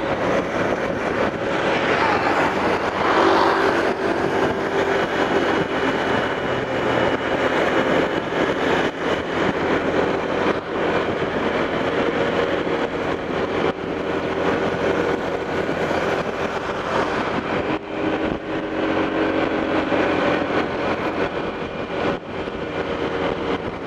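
Steady road noise from travelling along a busy highway: vehicle engines and tyres, with engine hums coming and going as vehicles pass.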